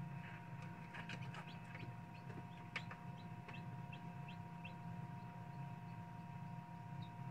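Chick peeping in a quick run of short, high cheeps through the first few seconds, with a few fainter ones near the end. Underneath is the steady hum of the incubator.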